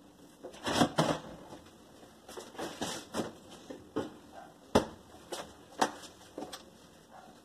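Kitchen handling noises at a stainless steel sink: a plastic cup set down and other items moved, giving a string of irregular clicks and knocks, the sharpest a little under five seconds in.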